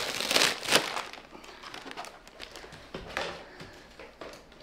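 Plastic bag and cardboard packaging rustling and crinkling as a grow light is pulled out of its box, loudest in the first second, then a few fainter rustles.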